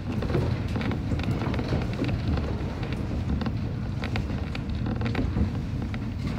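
Kōnan Railway 7000 series electric train running along snow-covered track, heard from inside the driver's cab: a steady low rumble from the running gear with many scattered sharp clicks and knocks.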